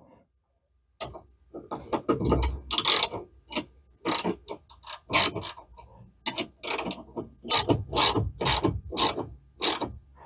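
Ratchet wrench clicking in short bursts, about two or three a second, starting about a second in, as a bolt is tightened down.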